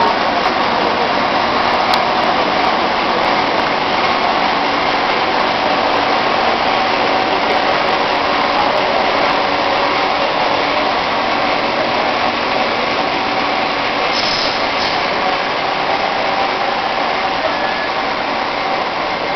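Steady machinery noise of a PVC pipe extrusion line running: an even hiss with a few faint steady tones, and a brief higher hiss about fourteen seconds in.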